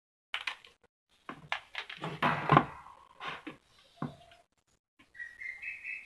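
Plastic and metal table fan parts clicking and knocking as the motor head is handled and fitted onto the stand, with the loudest knocks about two and a half seconds in. Near the end a thin squeak is drawn out for about two seconds, rising slightly in pitch.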